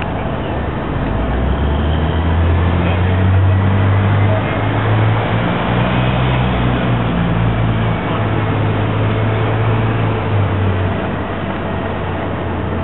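Low engine rumble over a steady rushing noise; the rumble swells a couple of seconds in and fades near the end.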